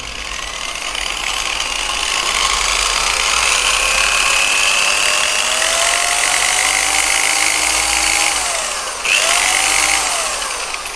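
J.LD J3310 5-inch rotary car polisher's 440-watt electric motor running with the foam pad spinning free. Its whine climbs slowly as the speed setting is raised, drops about eight seconds in, rises and falls once more, and winds down near the end.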